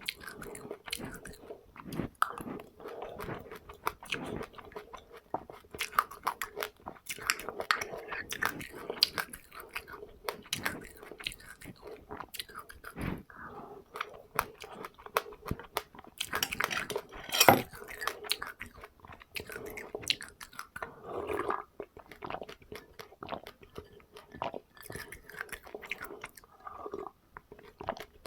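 A person chewing and crunching seeds eaten with passionfruit, with irregular crisp crunches one after another and one louder crunch about 17 seconds in.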